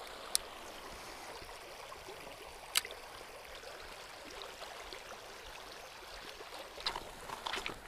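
Shallow rocky river riffle running over stones, a steady burbling rush of water. Two sharp clicks stand out, about a third of a second in and nearly three seconds in, with a few softer ticks near the end.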